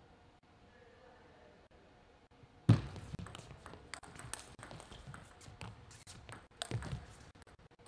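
Table tennis rally. A sudden loud thud about two and a half seconds in, then a quick run of sharp clicks of the ball on the bats and table, ending in a louder burst about seven seconds in.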